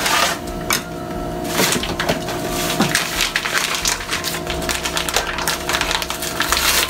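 Crinkling and rustling of the inner bag of a boxed cake mix being handled and pulled open by hand, a dense run of small irregular crackles.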